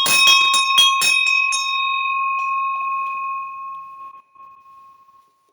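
A hand bell rung with a quick run of clapper strikes, about four a second, that stop about a second and a half in. Its single high note, close to C sharp 6, then rings on and fades away by about five seconds in.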